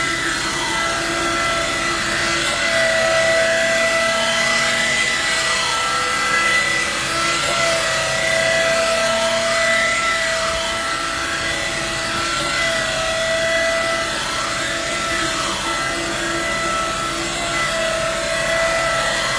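Hydraulically driven automatic knife grinder on a Fendt Tigo 90XR loader wagon, running along the bank of cutting knives and grinding them sharp. It makes a steady whine whose pitch dips and rises in a repeating pattern about every two and a half seconds.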